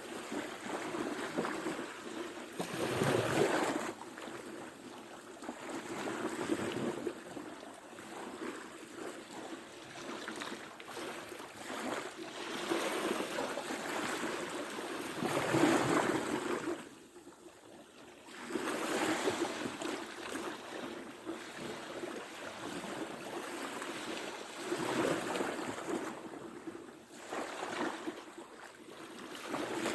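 Ocean surf: waves breaking and washing in, swelling and fading every few seconds, with the loudest wave about halfway through followed by a short lull.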